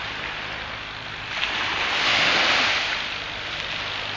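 Small sea waves washing onto a sandy beach, a steady hiss with one wave surging in louder about a second and a half in and dying back about a second later.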